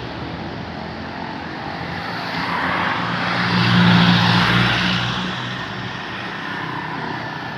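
A large vehicle, most likely a bus, passing close by. Its engine hum and road noise swell to a peak about four seconds in, then fade away.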